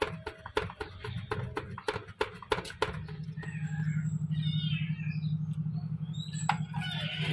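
Rapid tapping and rattling for about three seconds, then a trapped kitten crying behind window glass over a steady low hum.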